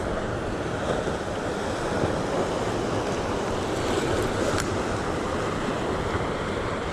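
Ocean surf washing against the rocks, a steady rushing, with wind buffeting the microphone. A couple of faint clicks stand out, about a second in and past the middle.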